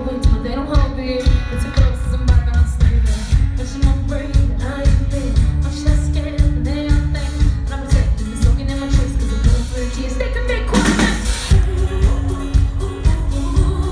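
Live pop-rock band playing, with a woman singing lead over electric guitar and a steady drum beat, heard loud from the audience. A brief burst of noise cuts across the music about eleven seconds in.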